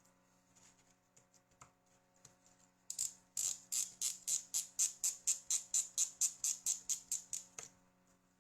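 A few faint taps, then a rapid, even run of short scraping clicks, about four a second, lasting nearly five seconds, from a small mechanism worked by hand. A steady low hum runs underneath.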